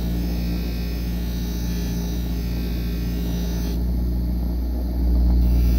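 Bench grinder motor running with a steady hum while a hoof knife is given light final passes on the pasted felt wheel. A light hiss over the hum stops about two-thirds of the way through, and the low hum swells near the end.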